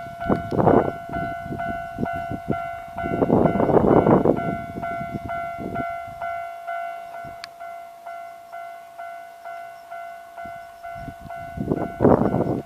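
Electronic Japanese level-crossing alarm bell ringing steadily, about three strikes a second. An Enshu Railway train rumbles and clacks over the crossing in the first six seconds, with more rumbling near the end.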